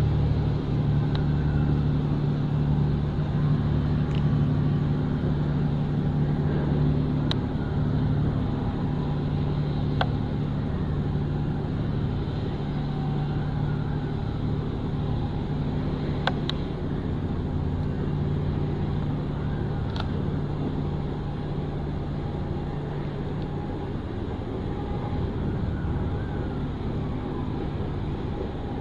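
Low, steady engine hum of a passing cargo ship, slowly growing fainter as the ship moves away, with a few faint sharp ticks.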